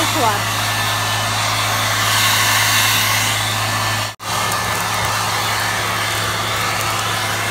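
Hair dryer blowing steadily onto burning charcoal to fan the fire, a steady rush of air over a constant motor hum. It drops out for an instant about four seconds in and comes straight back.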